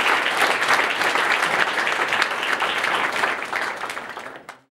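Audience applauding, many hands clapping at once. It fades away and cuts off to silence near the end.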